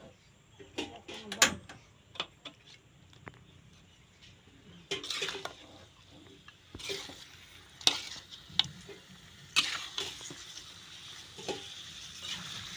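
Metal spoon clinking and scraping against an aluminium pan while duck pieces are stirred in spice paste, in irregular knocks and scrapes, a few sharper clinks among them.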